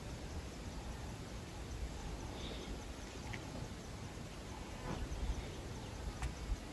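Open-air ambience: a steady low rumble with a few faint, short high chirps in the middle and near the end.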